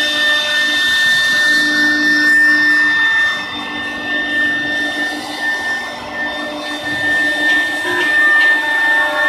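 Electric spindle motor of a three-spindle CNC wood router running, a steady high-pitched whine over a rushing hiss. It eases a little in the middle and comes back up near the end.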